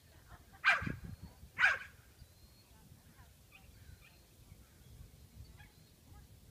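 Herding dog barking twice, about a second apart, while working sheep.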